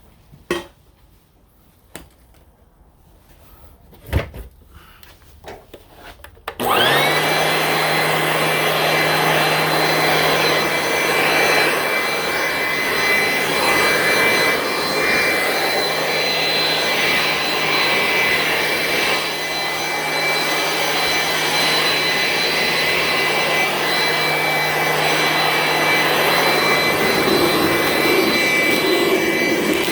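A few light clicks and knocks, then about six seconds in a leaf blower starts and runs steadily with a high whine, blowing the work area clean.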